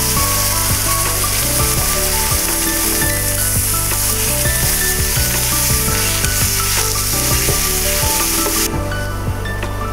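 Raw ground pork sizzling in a hot, dry aluminium stockpot with no oil, as it is stirred and broken up with a wooden spatula. The sizzle cuts off abruptly about nine seconds in.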